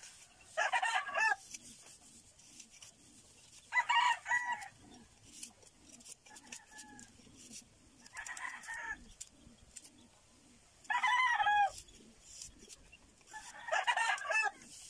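A rooster crowing: five short crows, each under a second, spaced about three seconds apart. Between them there is faint light scraping from a blade shaving bamboo strips.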